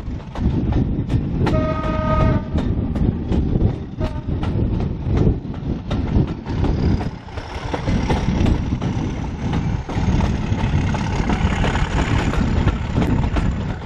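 Heritage train running along the line, heard from aboard a BR Mark I carriage: a steady rumble with rapid clatter of the wheels over the rails. The locomotive gives one short blast about two seconds in. A faint high whine slowly rises in pitch through the second half.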